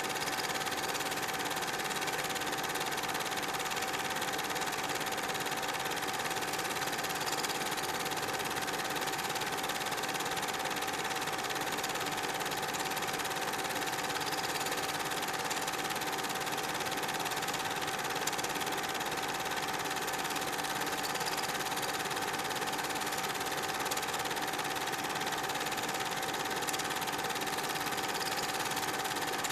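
Super 8 film projector running: a steady mechanical whir with a constant tone, unchanged throughout.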